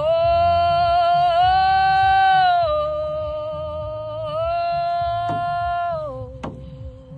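A woman singing long wordless held notes that step up and down in pitch, some with a slight waver, over a low rumble. A few sharp knocks come in the second half.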